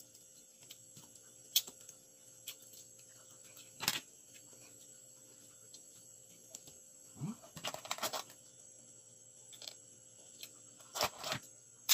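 Crab shell being cracked and picked apart by hand while eating, heard as a few short sharp clicks and crackles: one about four seconds in, a cluster around eight seconds and another near the end.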